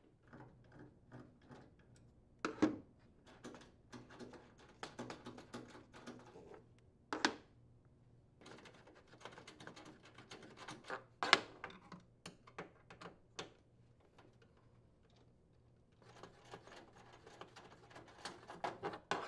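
Metal mounting bolts being unthreaded by hand from the wooden floor of an upper kitchen cabinet: a run of small irregular clicks and scrapes, with a few sharper knocks.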